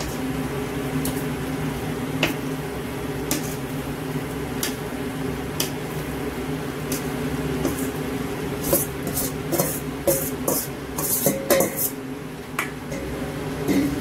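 Metal spoon clinking and scraping against a metal bowl and a large aluminium stockpot as chopped pork is tipped in and pushed around, with soft squishes of the wet meat. The clinks come about once a second at first, then in a quick cluster in the last few seconds, over a steady low hum.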